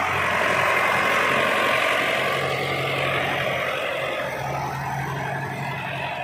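An old tractor's diesel engine running steadily as the tractor drives with its front wheels lifted off the ground.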